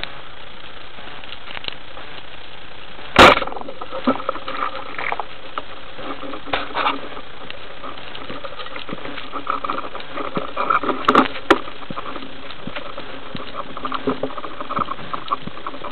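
Underwater, a single sharp crack about three seconds in: a band-powered speargun firing its shaft. It is followed by scattered clicks and knocks over a steady hiss of water noise heard through the camera housing.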